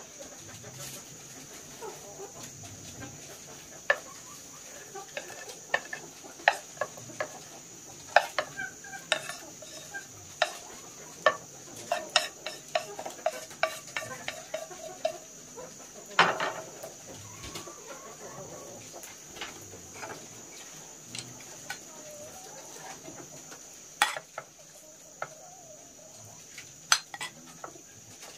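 Chickens clucking, with many sharp clicks and knocks scattered through, thickest in the middle and with one louder knock about halfway, over a steady high hiss.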